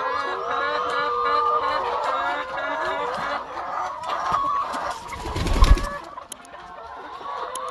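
A flock of brown hens clucking and chattering over one another as they crowd a feeding bowl. About five and a half seconds in comes a brief loud rumbling bump, after which the calls die down.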